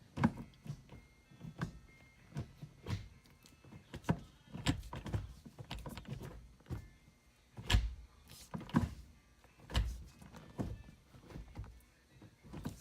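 Manual gear shifter fitted with a TRD short-throw quickshifter and a weighted shift knob being worked through the gears: a series of irregular clunks and clicks from the shift linkage and gates.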